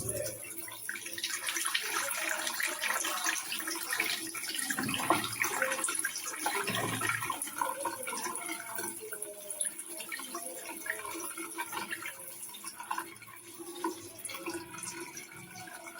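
Running water splashing, as from a tap or into a sink.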